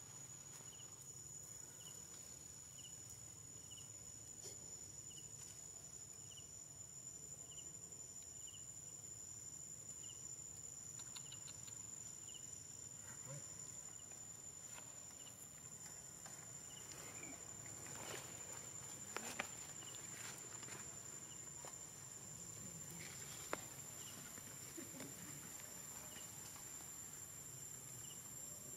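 Faint insect drone: a steady high whine with a short chirp repeating about once a second through the first half. A few sharp clicks stand out about two-thirds of the way through.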